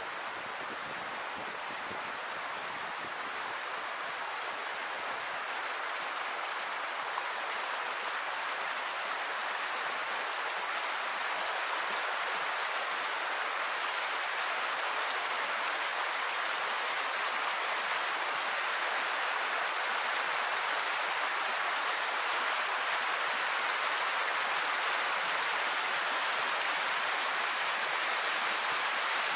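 River water flowing over a submerged concrete road crossing and spilling off its edge in a small cascade: a steady rushing that grows gradually louder.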